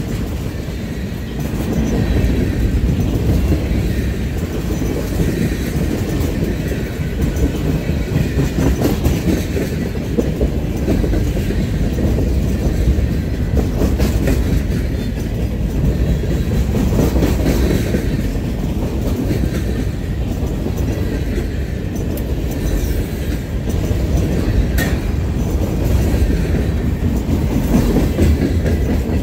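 Freight train of tank cars and boxcars passing at close range: steel wheels rolling over the rails in a steady heavy rumble, with a few sharp clicks.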